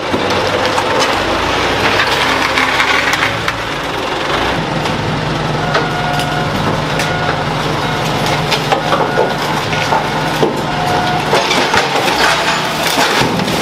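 Scrap car body being crushed in a hydraulic car press: sheet metal crumpling and glass cracking and popping over a steady machine hum. Short electronic beeps repeat through the second half.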